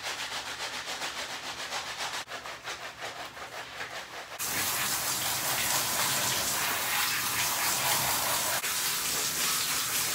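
Rubber-gloved hand scrubbing shampoo into a wet poodle's coat in quick repeated strokes. About four seconds in, a handheld shower head comes on suddenly with a steady, louder hiss of spray, rinsing the shampoo off the dog.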